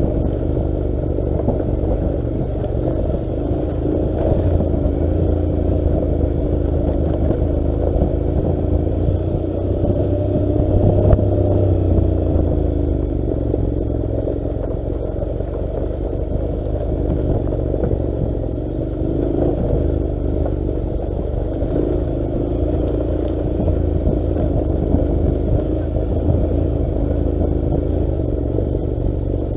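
Honda NC700's 670 cc parallel-twin engine running steadily at low revs while the motorcycle rides a dirt track, its pitch rising and falling gently with the throttle over a low rumble.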